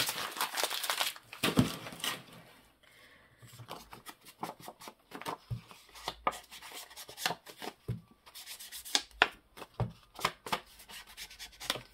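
Paper and card being handled and rubbed on a craft table: irregular rustling, sliding and small taps, with a quieter stretch about three seconds in.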